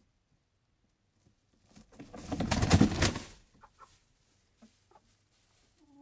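A hen's wings flapping hard for about a second and a half, a rapid flurry of wingbeats as it comes down off the hay-covered roost. A few faint rustles follow, and a hen gives a soft cluck right at the end.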